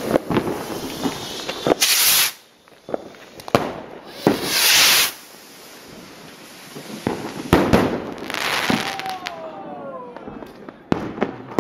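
Fireworks and firecrackers going off: scattered sharp bangs and crackles, with two loud hissing bursts about two and five seconds in.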